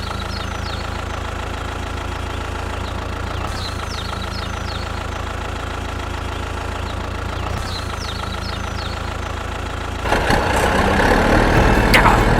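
An engine idling with a steady hum. About ten seconds in it turns louder and rougher.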